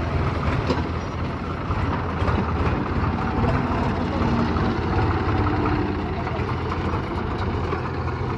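Heavy diesel engine running steadily.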